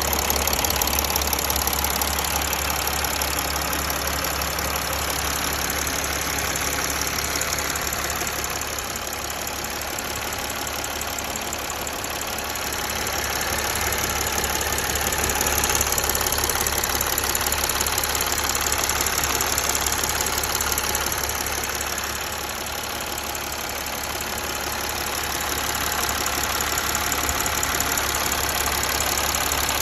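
Mercedes ML 280 CDI's OM642 V6 diesel engine idling steadily with a ticking noise.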